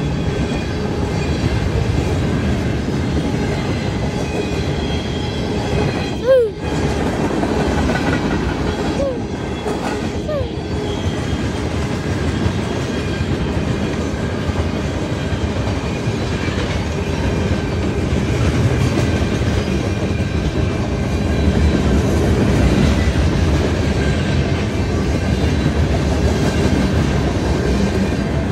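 Freight train rolling past at close range: tank cars and gondolas with a steady rumble and the clack of wheels over the rail. A few short falling squeals about six, nine and ten seconds in, the first with a brief loud knock.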